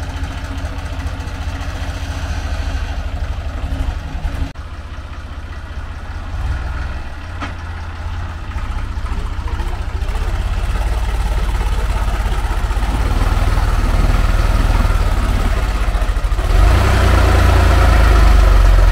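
Tractor engine running with a steady low beat. It grows louder from about halfway and is loudest near the end.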